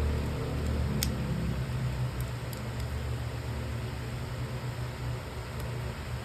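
Steady low background rumble with one sharp click about a second in and a few faint ticks after.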